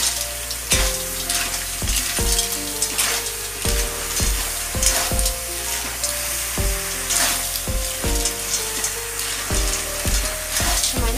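Snails frying in hot oil in an iron kadai, sizzling steadily, while a metal spoon stirs them with repeated scrapes and knocks against the pan.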